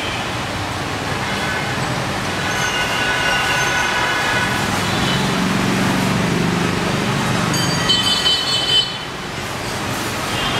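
Dense motorbike and scooter traffic with a few cars, a continuous engine hum, with horns sounding over it. The horns come as a longer stretch of honking early on and a quick cluster of sharp toots about eight seconds in.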